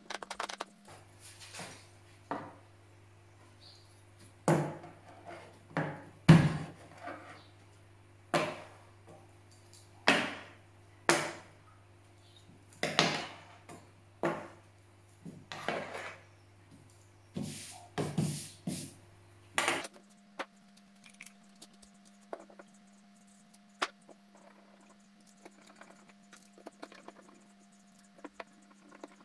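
Aluminium router insert plate knocking and clattering against its recess in the bench top as it is set in and pressed down by hand. The knocks come every second or so, a few of them loud, for about twenty seconds, and then only a few faint ticks follow.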